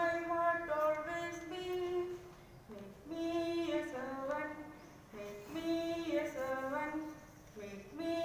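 A woman singing a slow melody, holding long notes in phrases separated by short pauses about every two and a half seconds.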